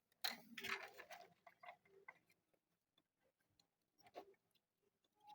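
Faint scattered clicks and light ticks from hands fitting a wire onto the aux lead connection of an LCD TV's main board. They cluster in the first second and come singly after that, with near silence between.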